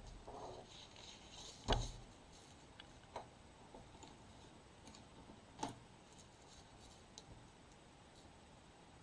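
Faint handling sounds on a wooden tabletop: a sheet of drawing paper being slid aside, with a sharp knock about two seconds in and two lighter knocks after it.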